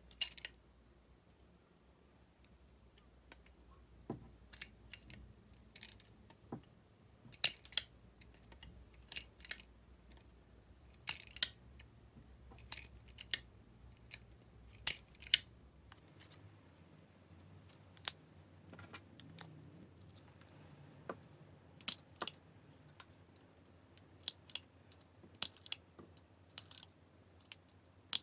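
Irregular sharp clicks and snips of a small metal hand tool and screw clamp being worked on thin split-flap cards, sometimes singly and sometimes in quick pairs. A faint low hum stops about halfway through.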